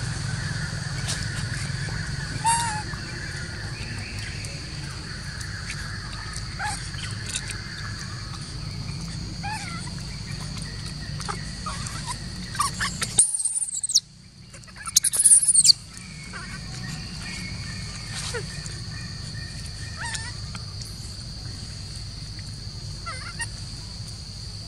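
Outdoor woodland ambience: scattered bird calls and chirps over a steady high hum. About halfway through, the sound drops out briefly, then a second or so of loud, shrill calls follows.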